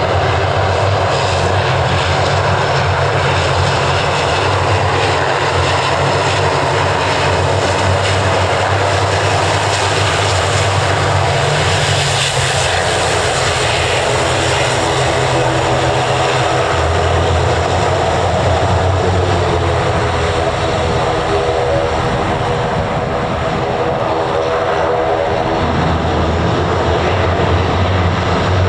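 Aircraft engines running loud and steady. The sound is brightest and harshest about twelve seconds in, and a cluster of tones slides down in pitch in the latter part.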